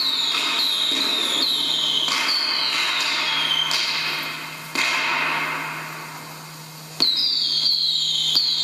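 Recorded fireworks sound effect: a run of short falling whistles over crackling. It fades out about halfway through, then picks up again with a sharp bang near the end.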